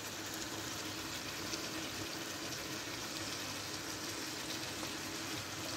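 Clay tagine of lamb and green beans simmering on a gas burner: a steady, even hiss.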